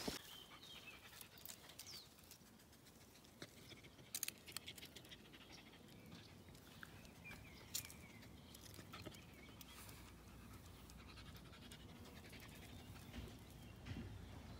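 Faint panting of a small dog, with a few soft clicks.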